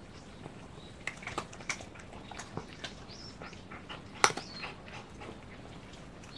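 Tabby cat crunching dry kibble from a bowl: a run of irregular crisp crunches and clicks, the loudest a little past four seconds in.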